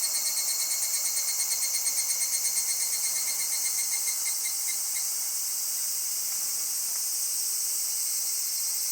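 Night insects, crickets, chirping: a rhythmic high chirp at about five pulses a second that fades out about halfway through, over a steady high-pitched insect drone.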